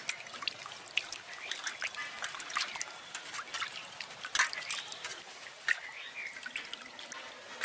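Water splashing and sloshing in a steel bowl as hands rub and turn raw boal catfish pieces to wash them, in irregular wet slaps and drips, the loudest about four and a half seconds in.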